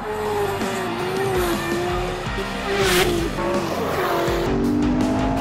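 Race car engine running hard with tire-sliding noise, under background music. A brief loud rush of noise comes about three seconds in.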